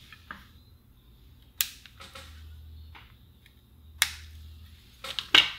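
Side cutters snipping wire leads on a transistor radio's circuit board: sharp snaps about a second and a half in, again at four seconds, and a quick pair near the end.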